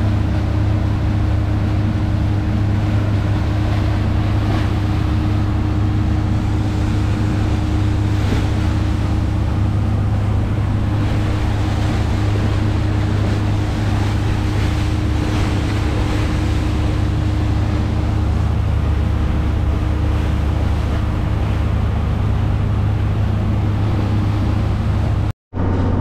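Steady engine drone of a 1997 Albin 34 motor yacht under way, with rushing wake water and wind on the microphone. It cuts off suddenly just before the end.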